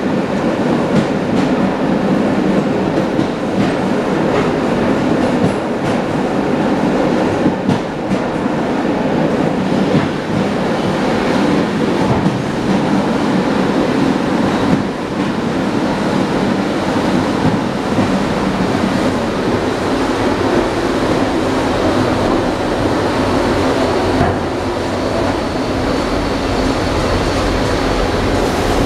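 ED9M electric multiple unit running at speed, heard from the vestibule of a carriage: a steady rumble of wheels on rail, with scattered knocks of the wheels over rail joints.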